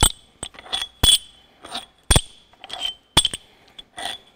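Loose steel cylinder-head bolts and nuts clinking against each other in a hand: about ten sharp, irregular metallic clinks, each with a brief bright ring.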